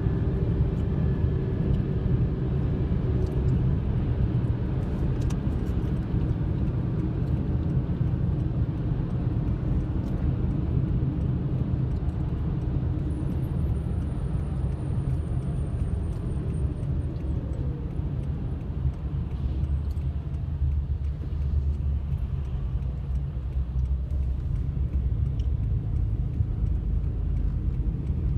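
Steady low rumble of tyre, road and engine noise heard inside a moving car's cabin at freeway speed.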